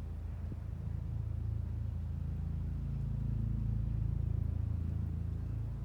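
Low, steady mechanical rumble, like an engine, that swells slightly toward the middle and eases near the end.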